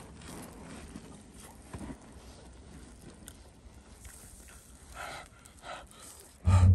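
Two short, breathy puffs of breath from a person eating hot, steaming grilled steak, near the end, over a faint outdoor background, followed right at the end by a loud, deep thump.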